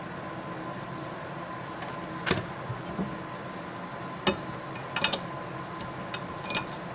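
Steel connecting-rod cap and crankshaft parts being handled and fitted by hand: a handful of short metal clicks and clinks, the loudest about two seconds in, over a steady faint hum.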